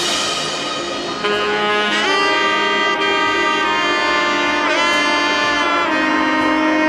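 Background music: a wind-instrument melody of long held notes, a couple of them bending in pitch.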